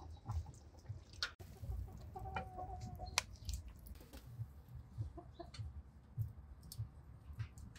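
Chickens clucking, with one held call about two and a half seconds in, over scattered sharp clicks and low thumps.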